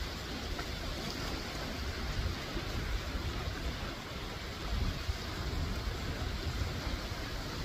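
Steady wash of surf breaking on a rocky shore, with wind gusting on the microphone as a low rumble.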